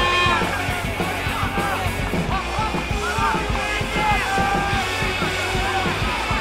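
Football crowd in the stands chanting and singing together over a steady beat.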